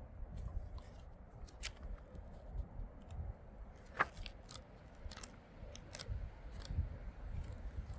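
A scattered series of light clicks and taps over a low rumble, the sharpest about four seconds in; no saw motor is running.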